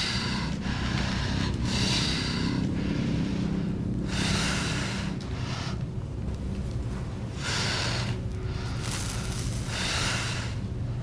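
Heavy, ragged breathing: a long, hissy breath every two to three seconds, over a low steady hum.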